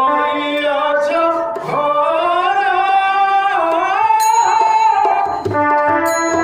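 A voice sings a gliding melodic line over instrumental accompaniment. About five seconds in, the voice stops and the instruments play on with steady held notes and a low beat.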